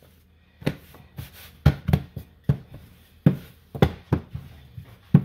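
Hands pressing and folding biscuit-style pizza dough on a countertop, then taking up a wooden rolling pin: a string of dull thumps at uneven intervals, about two a second.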